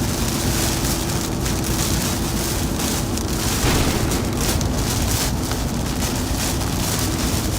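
Steady rush of storm wind and heavy rain, with a faint steady hum of a vehicle underneath.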